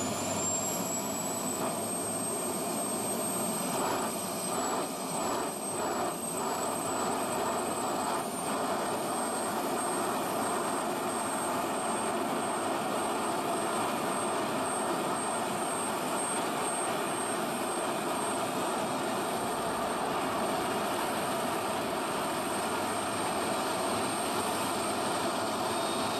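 Jet engine running steadily, with a high whine that rises in pitch over the first couple of seconds and then holds.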